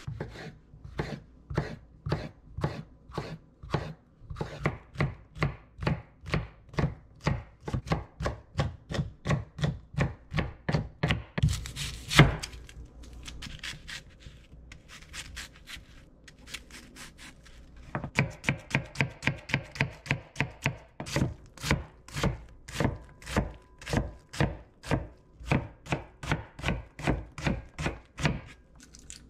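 Chef's knife chopping an onion on a wooden cutting board: a steady run of knife strikes, about two or three a second. One much louder knock comes about twelve seconds in, the strikes go softer for a few seconds, then the chopping picks up again.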